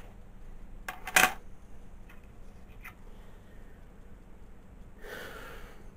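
Hands handling a coin: a sharp click-knock about a second in, a few faint taps after it, then a short rustle near the end.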